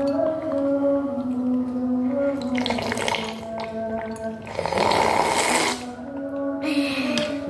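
Slurping of noodle-soup broth drunk straight from a tipped bowl: a short slurp about three seconds in, a longer, louder one around five seconds, and a third near the end. Steady background music plays underneath.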